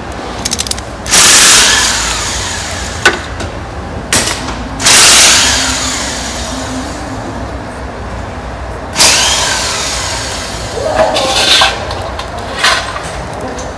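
Hand ratchet wrench clicking and metal tapping as bolts are undone on the underside of a car, with three loud bursts of workshop tool noise that start suddenly and fade over a second or two.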